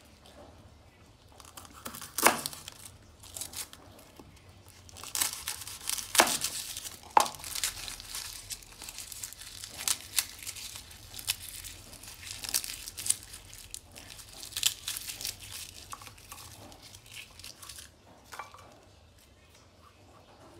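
Dry papery garlic skins crackling and tearing as a whole garlic bulb is broken apart into cloves by hand, with sharp snaps now and then, the loudest about two, six and seven seconds in. The crackling thins out near the end.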